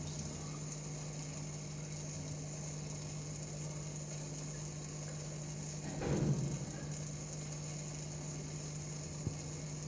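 Steady low hum and faint hiss of an aquarium pump running, with one brief louder noise about six seconds in.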